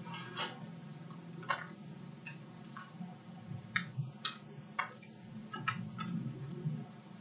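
Light, sharp clicks, about nine of them at irregular intervals and clearest in the second half, over a steady low hum.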